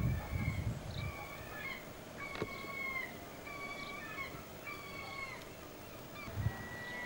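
A bird calling repeatedly: a run of short, level-pitched calls about one a second, some dropping in pitch at the end, over light wind on the microphone.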